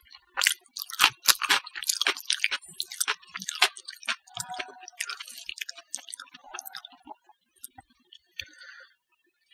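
Close-miked sounds of eating rice by hand: fingers squeezing and mixing rice with mashed potato on a plate, with wet, sticky clicking. The clicks come thick and fast for the first few seconds and grow sparser after.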